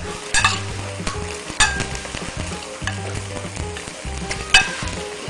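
A metal spoon stirring and basting chicken in sweet soy sauce in a ceramic plate, clinking sharply against the plate three times, over a steady hiss and background music.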